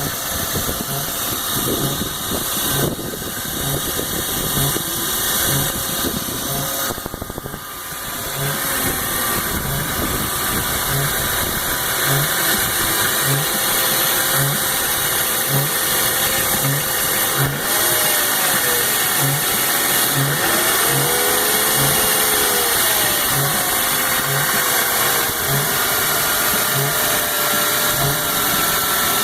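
BMW E46 engine idling cold with a strange noise likened to Chewbacca: a low note pulsing about once a second, and a wavering tone sliding up and down midway. The sign of a failed crankcase oil/air separator; replacing it cured the noise.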